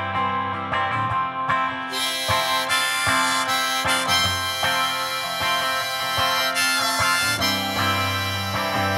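Harmonica in a neck rack playing an instrumental solo over rhythmic strumming on a hollow-body electric guitar.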